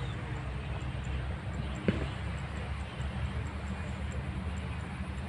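Steady low outdoor background rumble, with one sharp knock about two seconds in.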